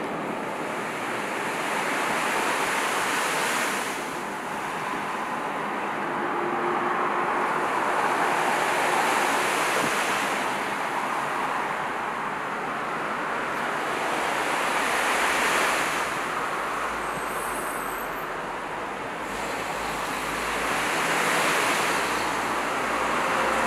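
Waves washing: a steady rush of water that swells and fades about every six seconds.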